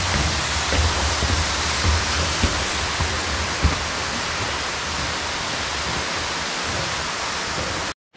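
A mountain waterfall about 20 metres high rushing steadily, the even noise of falling water, with a few low thumps in the first four seconds. The sound cuts out for a moment near the end.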